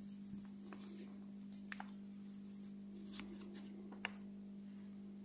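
Faint, scattered soft ticks and rustles as orange powdered colouring is shaken from a paper sachet into a jar, over a steady low hum.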